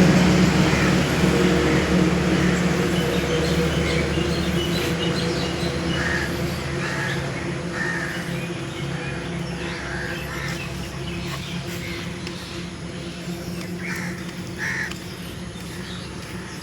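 A steady low mechanical drone, like a passing engine, fading slowly away. Birds give a series of short calls, starting about six seconds in and again near the end.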